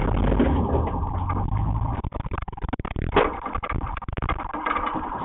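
A car running and moving slowly, picked up by an in-car camera: a low rumble, then a run of irregular knocks and rattles with one louder knock about three seconds in.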